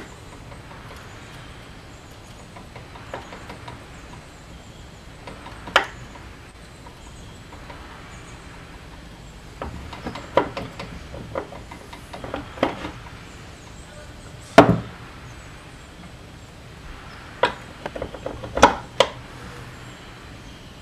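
Irregular metal clinks and knocks from gears and parts being handled inside an open lawn tractor transaxle case on a wooden workbench. A sharp knock about two-thirds of the way through is the loudest, with a cluster of clicks in the middle and another near the end.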